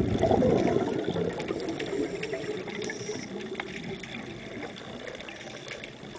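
Scuba regulator exhaust bubbles rushing past an underwater camera housing, loudest in the first second, then easing into a steady underwater hiss with scattered faint clicks.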